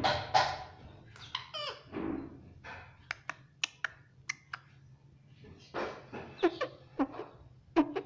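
Indian ringneck parakeet giving short raspy calls that bend in pitch, with a run of sharp clicks from its beak tapping the toy's plastic bars about halfway through.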